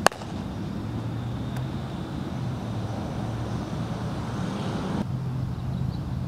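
A baseball smacking into a leather fielder's glove once, a single sharp pop, with a fainter click about a second and a half later. A steady low outdoor rumble like distant traffic runs underneath, and the background changes abruptly about five seconds in.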